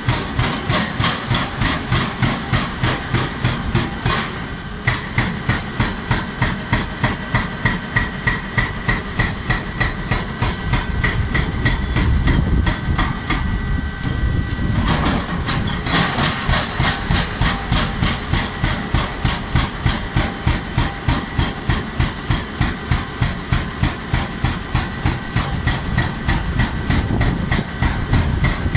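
Hydraulic breaker on a JCB tracked excavator pounding rock: a fast, regular hammering of about three blows a second over the excavator's running engine, with a brief break about four seconds in.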